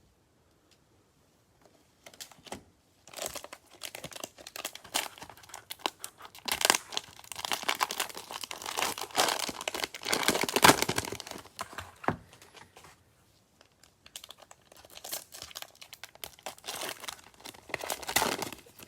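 Cellophane wrapper of a Prizm football cello pack being torn open and crinkled by hand, in irregular crackling bursts with a short pause about two-thirds of the way through.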